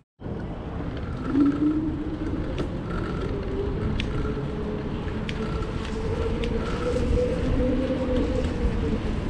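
Downtown street ambience: a steady rumble of vehicle traffic, with a few faint wavering tones and scattered clicks over it.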